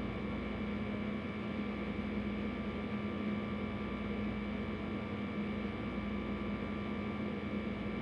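A steady electrical-sounding hum with a few faint high steady tones over it, unchanging throughout.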